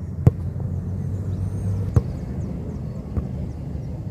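A football struck three times, one to two seconds apart, as two players keep it in the air passing it back and forth, over a steady low rumble.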